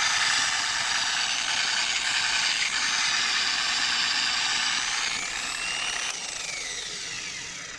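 Electric car polisher running fast, just turned up a little, with a loud, high motor whine. Near the end its pitch falls as it winds down.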